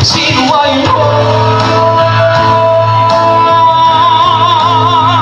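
A singer holds one long high note over backing music, the note going into vibrato near the end.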